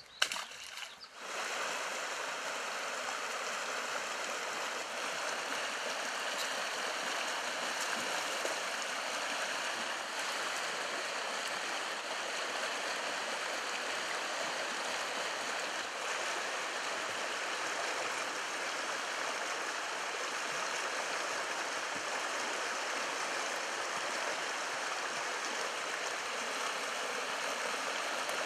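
Shallow river water rushing steadily over a riffle. A brief knock comes just before the rush starts, about a second in.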